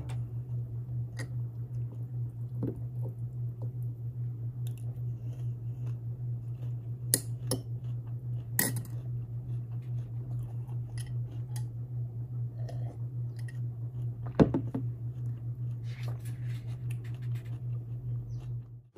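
A steady low hum with a few light clicks and knocks from a glass drink jar being handled and set down on a desk. The loudest knock comes about fourteen and a half seconds in.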